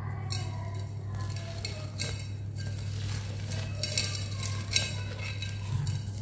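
Dusty sand-cement lumps crumbled by hand, grit and powder pouring through the fingers into a bowl: a gritty crunching and sifting hiss that comes in bursts, with a few sharper crunches around the middle. A steady low hum runs underneath.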